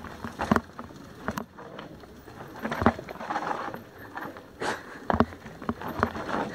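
Mountain bike rattling down a rocky dirt trail, with irregular sharp knocks as the wheels hit rocks and roots over a steady noise of tyres on dirt.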